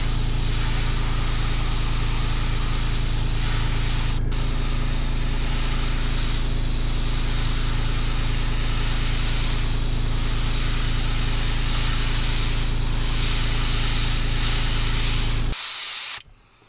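Airbrush spraying paint, a steady hiss over the low steady hum of its air compressor running. The hiss breaks off for an instant about four seconds in, and both stop shortly before the end.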